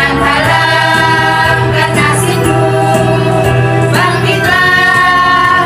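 Women's choir singing long held notes together, moving to a new note about four seconds in.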